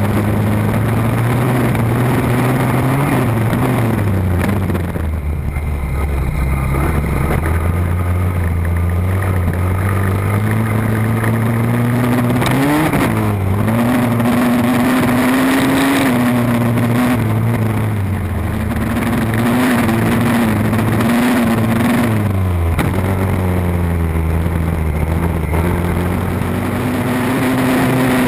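Mini ATV's small engine running under throttle while being ridden, its pitch climbing and falling repeatedly as the rider revs on and backs off, with a few sharp drops followed by climbs.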